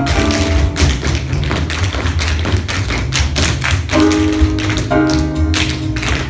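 Tap shoes of several dancers striking a wooden floor in quick, overlapping rhythms, over music with a strong bass beat.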